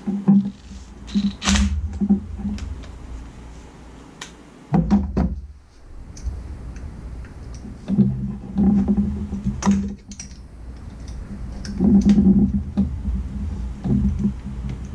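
A cordless power tool whirs in several short bursts as it works bolts, with sharp clicks and knocks of metal tools and parts between the runs.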